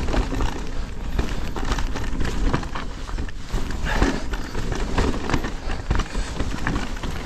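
Cube Stereo Hybrid 160 e-mountain bike descending a rocky trail at speed: tyres clattering over stones and the bike rattling with many irregular knocks, over a steady rumble of wind on the microphone.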